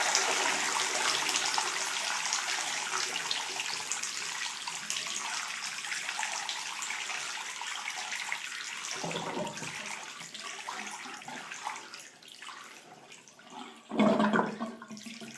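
Water running from a sink faucet's hot tap, the flow slowly dying away. The tap is being fed only by compressed air trapped in the top of the water heater tank, with the cold supply shut off. A brief louder, low sound comes near the end.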